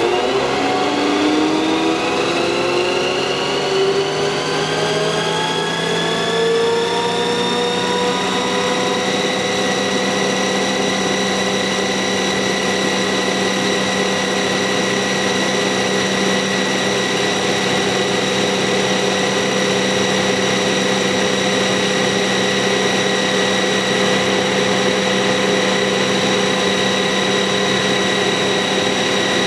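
Forestry mulcher rotor, driven through its belt drive by the carrier's hydraulics, spinning up for a vibration reading during balancing. A whine rises in pitch over the first several seconds, then holds steady at running speed over a dense mechanical noise.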